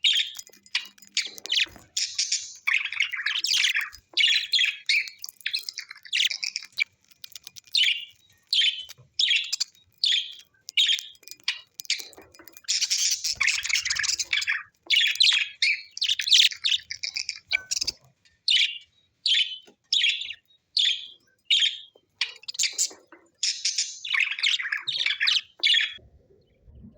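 Birds chirping and chattering: quick, high-pitched calls about two a second, with denser bursts of twittering in places, stopping about a second before the end.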